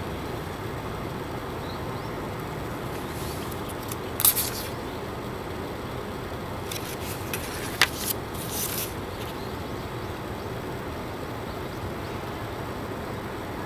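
Steady outdoor background hum like distant traffic, with a few short paper rustles and a sharp click between about four and nine seconds in as the pages of a passport are handled and turned.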